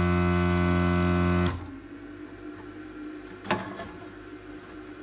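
Desoldering station's vacuum pump running with a steady electric hum and a hiss of suction as the desoldering gun draws molten solder out of a circuit-board joint. It cuts off about one and a half seconds in, and a single click follows about two seconds later.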